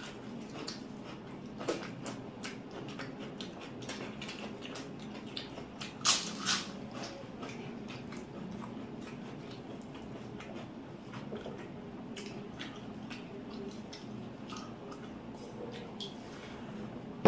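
Close-up eating of rice and egg curry: wet squishing and smacking with chewing and many small scattered clicks, and two louder clicks about six seconds in.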